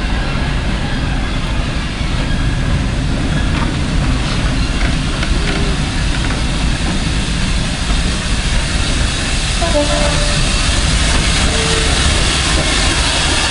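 Train running on the rails: a steady rumble of wheels and rolling stock with some clickety-clack, growing brighter and a little louder toward the end.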